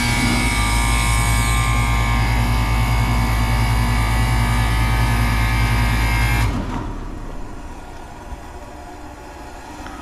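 1994 Goodman 5-ton heat pump outdoor unit running after being powered up, its compressor giving a loud, steady electrical hum. The compressor, condemned as shorted, runs. The hum stops suddenly about six and a half seconds in.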